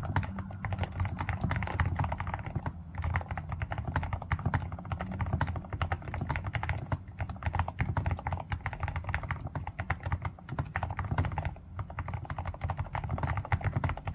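Fast, continuous typing on a Groovestone GS85 mechanical keyboard fitted with low-noise Haneul switches, a steady stream of keystroke clicks with a couple of brief pauses.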